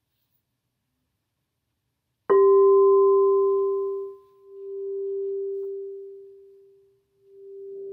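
Frosted crystal singing bowl struck once with a mallet about two seconds in, then ringing with one low steady tone and fainter high overtones that fade and swell again in slow waves. It is the bell that signals the start of a mindfulness lesson.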